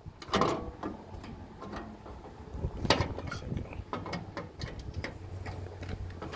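Chrome paddle latch on a tow truck's side toolbox compartment door being worked by hand: a run of metallic clicks and clacks, the loudest about half a second in and another near three seconds in.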